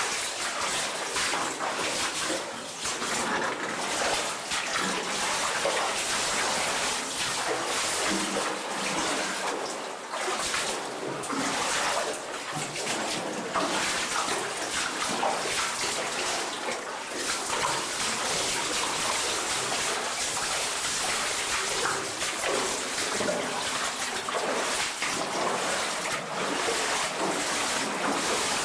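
Water rushing and splashing in an underground cave river: a continuous hiss that swells and dips.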